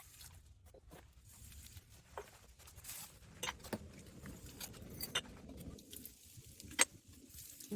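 Scattered clinks and knocks of empty drink bottles and cans being handled and sorted, a sharper clack near the end, over a low steady rumble.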